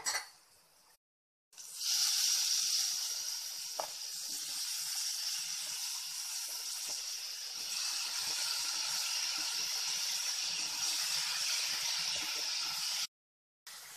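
Sliced button mushrooms sizzling as they fry in hot oil and masala paste in a steel pan: a steady hiss that starts suddenly about a second and a half in and cuts off abruptly near the end.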